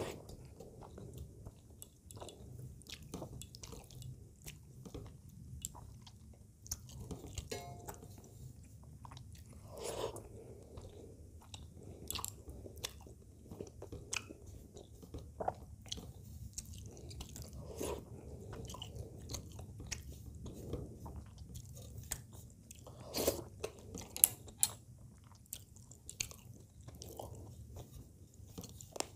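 Close-miked eating sounds of rice and fish curry eaten by hand: wet chewing and mouth clicks, with soft squishing of fingers mixing rice and curry on a steel plate. A few sharper clicks come about three quarters of the way through.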